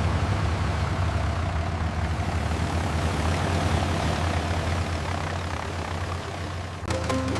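Combine harvester engine running steadily: a low drone with a rushing noise over it, which stops near the end as music begins.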